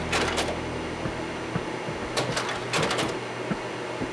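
Kodak Ektagraphic III slide projector changing slides: bursts of mechanical clicks and clunks from the slide-change mechanism near the start and again from about two to three seconds in, over a steady low hum.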